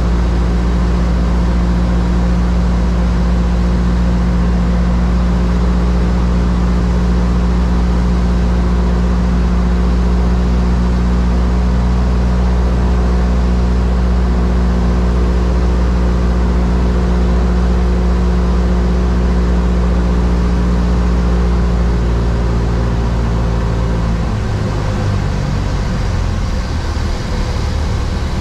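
Cessna 172's piston engine and propeller droning steadily inside the cockpit on final approach. About 24 seconds in, the steady drone drops and turns uneven as power comes back for the flare over the runway.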